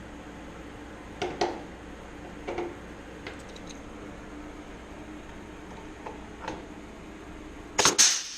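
Scattered light clicks and taps of rivets and Clecos being handled on a thin aluminium control-surface skin. Near the end comes a loud, sharp double snap: a blind rivet being pulled and set.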